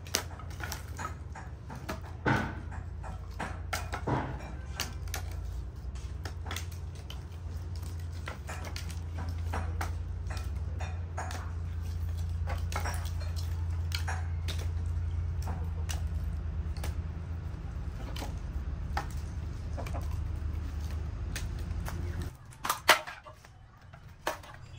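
Scattered clicks and knocks of cooking work, over a steady low rumble. The rumble cuts out about 22 seconds in, and then comes one loud knock followed by a smaller one.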